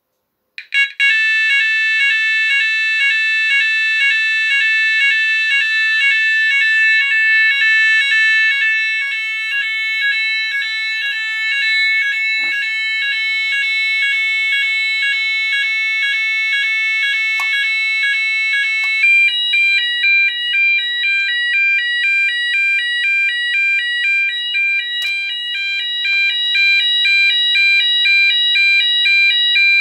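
Sonos DC electronic fire alarm sounder (Chubb/Esser) running on 12 V, starting about a second in with a loud, rapidly repeating multi-pitch alarm tone, the French AFNOR NF S 32-001 evacuation tone. About 19 s in it changes to a different tone, a fast alternation between two pitches, as its tone-selection DIP switches are flipped, with a few light clicks from the switching.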